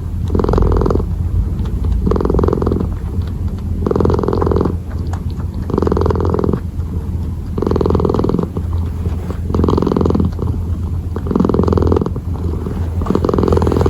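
Kitten purring close to the microphone: a continuous low rumble that swells and eases with each breath, about every two seconds.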